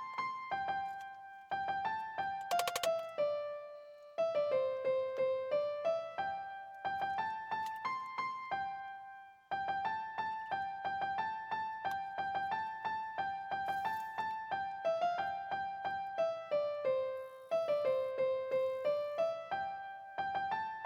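Background music: a simple electric-piano melody of repeated notes, pausing briefly a few times.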